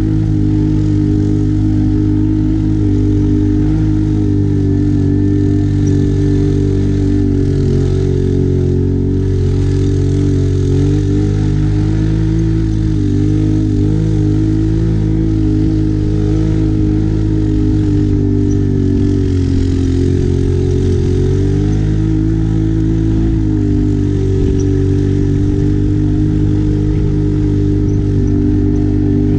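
Can-Am ATV engine running steadily under way on a dirt trail, its pitch wavering up and down with the throttle.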